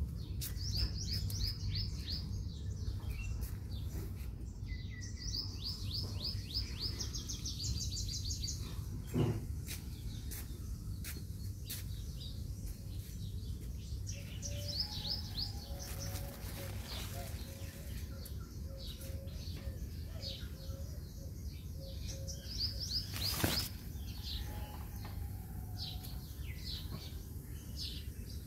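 Small garden birds chirping, with several quick runs of rapid high notes and scattered single chirps, over a steady low rumble. Two brief knocks, one about nine seconds in and another later on.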